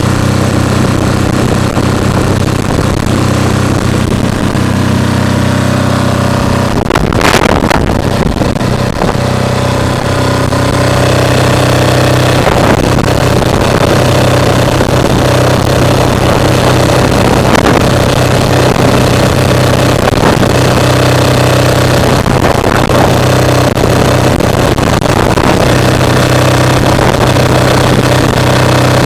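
Enclosed 'silent' diesel generator running steadily on 100% biodiesel, a constant low engine hum. Wind rushing on the microphone over it, with a brief louder rush about seven seconds in.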